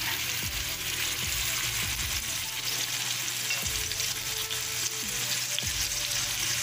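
Raw pork cubes, bay leaves, garlic, onion and tomato sizzling in a stainless steel frying pan on the stove, a steady frying hiss.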